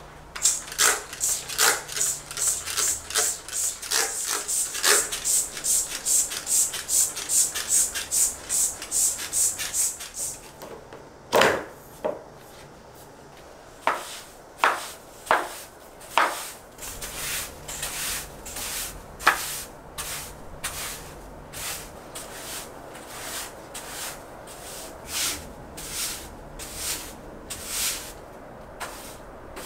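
IKEA PEPPRIG broom's stiff bristles sweeping across a tiled floor: quick scratchy strokes, about two a second, thinning out to a few harder strokes partway through, then settling into a softer steady rhythm.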